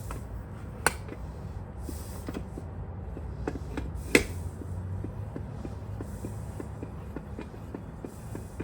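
Metal parts of an Atlas Power King table saw's blade-raising mechanism clicking as the mechanism is worked to test a newly fitted nut: two sharp clicks, then a run of light, even ticks at about three a second over a low hum.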